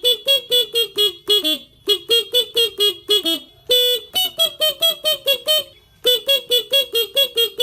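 Motorcycle basuri (telolet) musical horn playing a tune as a quick run of short beeping notes, about five a second, in phrases with brief pauses between them.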